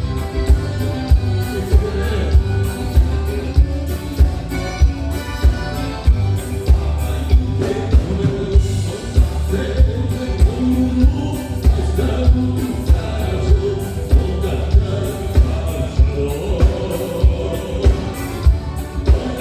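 Live gaúcho band music played over a PA, with a steady, evenly repeating drum beat under sustained melody lines.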